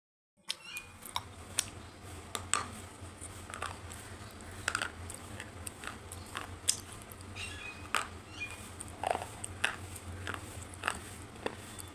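Close-miked eating: irregular sharp crunches and mouth clicks from biting and chewing food, over a steady low hum. The sound cuts in after a brief silent gap at the very start.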